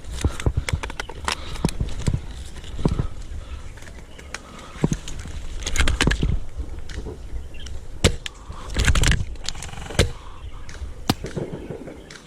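Irregular clicks, knocks and rustling, bunched about six and nine seconds in, over a low rumble.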